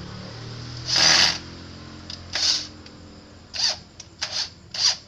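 Small electric screwdriver driving a bolt into a plastic motorcycle headlight housing: a low motor whir that stops about three seconds in, with five short harsh bursts of noise, the loudest about a second in.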